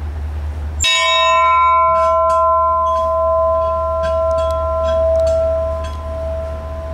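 The Hikawa Maru's brass ship's bell struck once about a second in, then ringing on with a clear tone that slowly fades.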